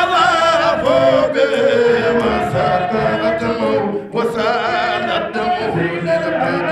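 Men's voices singing unaccompanied into microphones, a chant-like devotional song with long, wavering notes. The singing breaks off briefly about four seconds in, then resumes.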